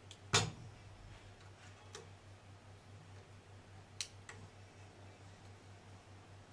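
A few sharp clicks and taps from hands handling the newly fitted immersion heater element and the tissue paper round its base, the loudest just after the start and lighter ones about two and four seconds in, over a steady low hum.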